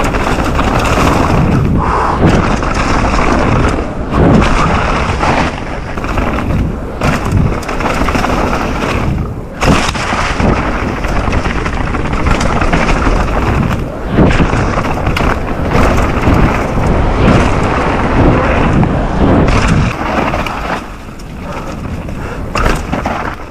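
Mountain bike riding down a rough enduro trail: tyres rolling over dirt and rocks with repeated sharp knocks and thuds as the bike hits obstacles. It gets quieter in the last few seconds.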